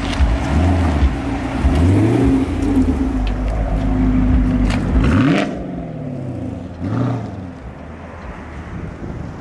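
Chevrolet Camaro engine revving several times, rising and falling in pitch, as the car moves off; about five and a half seconds in it drops off as the car pulls away, with one more short rev around seven seconds.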